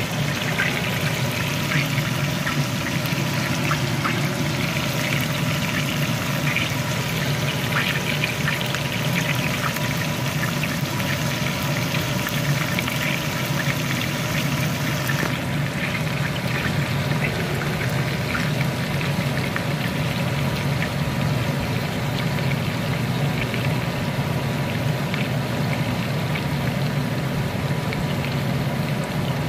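Marinated steak frying in oil in a pan: a steady sizzle full of small pops and crackles, over a constant low hum.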